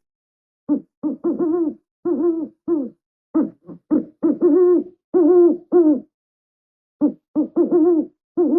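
Eurasian eagle-owl calling: a run of short, quick hoots in clusters of two to four, separated by brief pauses.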